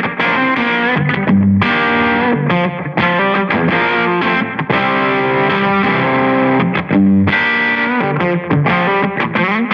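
Overdriven electric guitar chords and riffs, recorded through a miked guitar amp turned down with an attenuator, played back at a steady, full level with short breaks between phrases.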